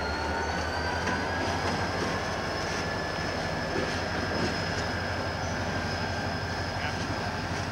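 EMD GP40 diesel locomotive moving with its freight cars, the engine running with a steady low rumble. Over it sits a high whine that rises slightly in pitch over the first couple of seconds, then holds steady.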